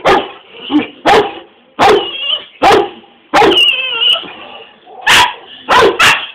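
A Saint Bernard and a pug play-fighting, barking: about eight loud, sharp barks roughly once a second, with a longer whining yelp about three and a half seconds in.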